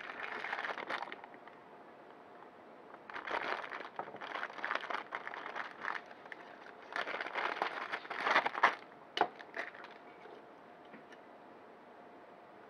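Small clear plastic zip bag crinkling in three bursts as it is handled and opened and the wire saw is pulled out. A couple of sharp clicks follow.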